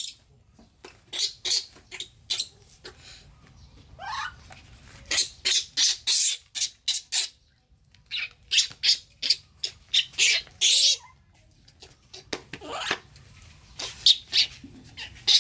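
Baby monkey squealing and crying in rapid runs of short, high-pitched calls, with brief pauses between the runs; it is hungry and wants its milk bottle.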